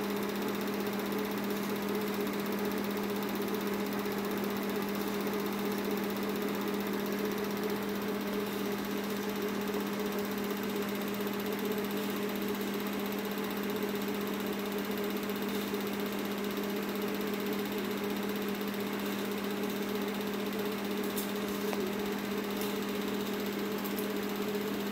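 Film projector running: a steady motor hum and whir that does not change.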